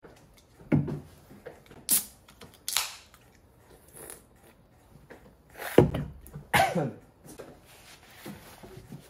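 Aluminium Diet Coke can opened: a sharp crack of the tab about two seconds in, then a short fizzing hiss. Near six seconds, a loud low thud and a short voice-like sound.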